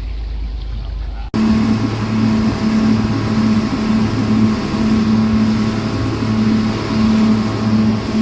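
Twin 250 outboard motors running a sport-fishing boat at speed, a steady engine hum with a regular pulsing over the rush of water and wind. A quieter low rumble before it breaks off abruptly about a second in.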